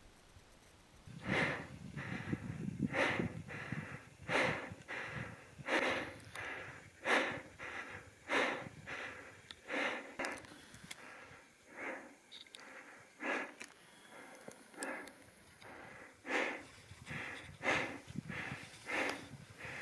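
Heavy breathing close to the microphone, a short noisy breath about every 0.7 seconds, with some low rumble in the first few seconds.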